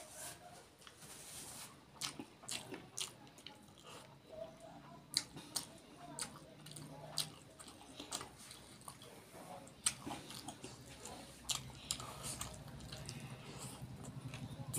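Close-up eating sounds: a person chewing mouthfuls of rice and curry eaten by hand, with irregular wet mouth clicks and lip smacks.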